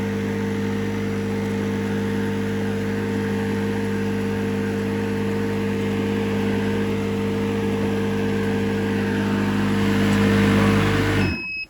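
Refrigerant recovery machine's compressor running with a steady hum, the system already pulled into vacuum after its refrigerant was recovered. It is switched off and stops abruptly near the end.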